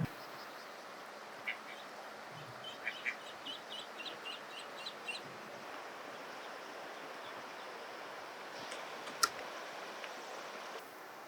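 Eastern spot-billed ducklings peeping: a quick run of short, high calls in the first half, over a steady background hiss. A single sharp click comes about nine seconds in.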